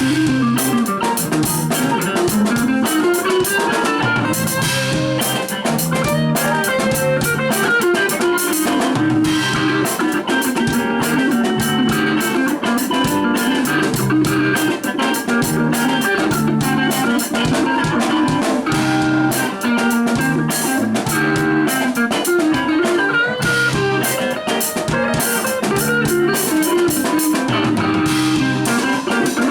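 Music with guitar over a steady drum beat and a repeating bass line.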